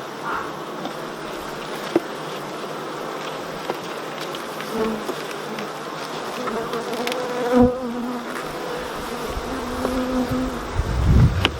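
Honeybees buzzing around an opened hive, with single bees passing close to the microphone as short, steady hums. A few light clicks, a knock about two-thirds of the way in, and a low rumble near the end.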